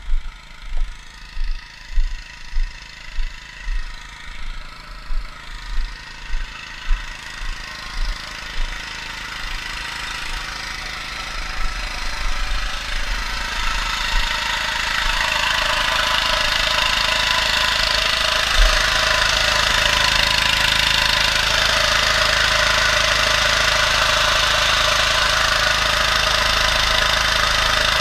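Footsteps thudding at an even walking pace, fading out, then a small petrol-engine water pump running steadily, growing louder over several seconds and then holding level.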